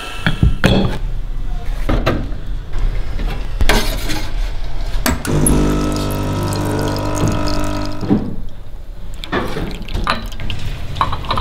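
Espresso machine brewing: a steady pump hum for a few seconds midway while espresso runs into a cup, with sharp clinks and knocks of the metal portafilter and ceramic cup being handled.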